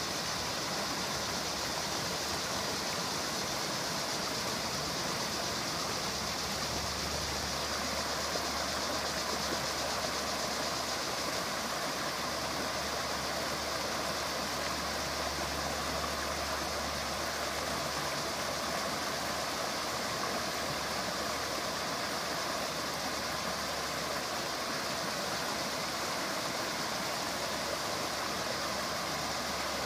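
Creek water rushing steadily over rocks in a shallow riffle. A low steady hum sits underneath for most of it.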